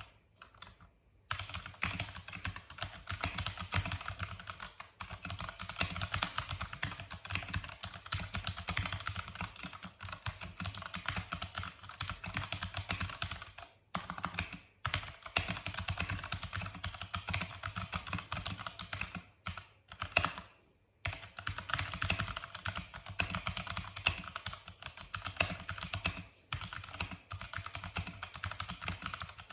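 Vortex VX5 mechanical keyboard with stock Outemu Brown tactile switches and clipped, tuned stock stabilizers being typed on fast: a dense run of keystroke clacks that starts about a second in and stops briefly a few times.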